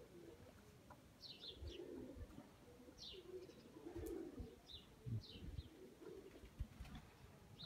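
Faint pigeon cooing with short, high, falling chirps from small birds every second or two.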